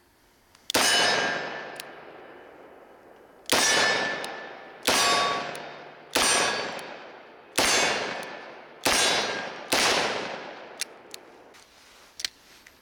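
Seven .357 Magnum shots from a Smith & Wesson 586 L-Comp seven-shot revolver, fired slowly at uneven gaps of one to three seconds, each crack trailing off in a long echo. All seven rounds go off with no light primer strike, emptying the cylinder, and a few faint clicks follow near the end.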